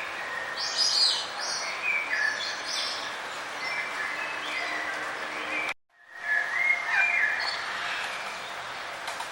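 Several songbirds chirping and warbling in short phrases over a steady background hiss. The sound drops out for a split second about six seconds in, then the chirping resumes.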